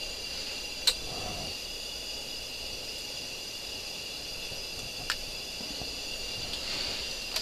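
A steady, high-pitched whine in several level tones, with two sharp clicks about a second in and about five seconds in.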